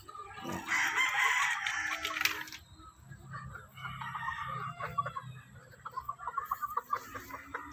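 Gamefowl rooster crowing, one call of about two seconds near the start, followed by chickens clucking in short repeated calls.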